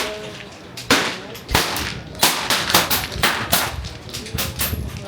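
Several air rifles firing in quick, irregular succession, with sharp cracks overlapping from more than one shooter.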